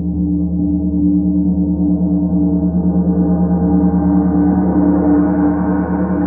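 A 32-inch Starchild gong played with a soft mallet: a loud, sustained wash of low humming tones with a slow pulsing beat, slowly swelling and growing brighter.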